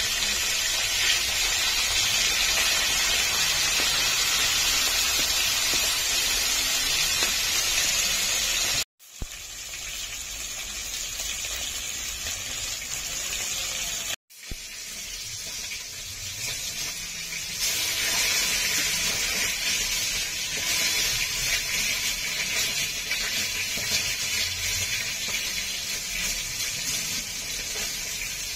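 Rohu (rui) fish pieces frying in very hot oil in a kadai: a steady, hissing sizzle. It breaks off twice for a moment and is somewhat quieter for several seconds in the middle.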